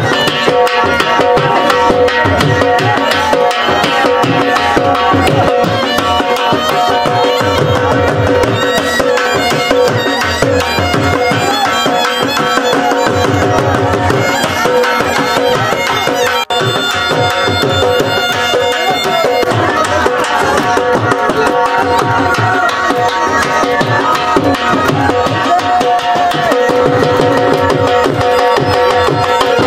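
Saraiki jhumar dance music: drums beating under a sustained, held melody. It drops out for an instant about halfway through.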